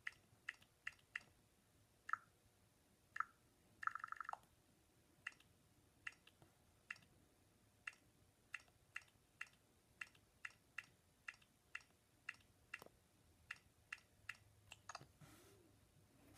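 Quiet fingertip taps on a tablet touchscreen, irregular clicks about one or two a second, with a quick run of rapid clicks about four seconds in.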